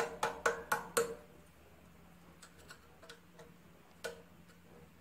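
Sharp metallic clicks as the small steel latch, springs and cotter of a McCormick-Deering type M engine's magneto trip mechanism are fitted and worked by hand. A quick run of about five clicks comes in the first second, then a few faint ticks and one more click about four seconds in.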